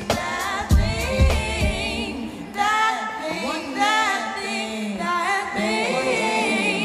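Music playback: a beat with heavy bass-drum hits for the first two seconds, then the drums drop out and a singer holds long notes with vibrato.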